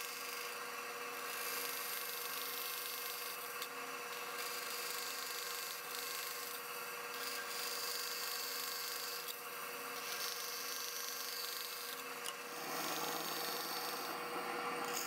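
Bandsaw running with a steady hum as its blade cuts into a solid cherry board along the dovetail layout lines. The sound grows fuller and a little louder near the end.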